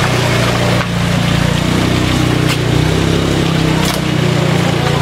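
Vehicle engine running steadily on the move, with a constant rush of road and wind noise.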